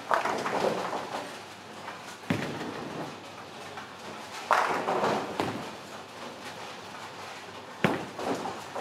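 Ten-pin bowling on several lanes: pins crashing with a clattering rush at the start and again about halfway through, and sharp thuds of bowling balls landing on the lane, the second just before the end.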